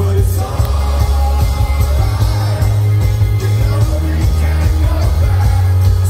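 Live rock band playing through a big concert sound system, with electric guitars, drums and heavy bass under singing.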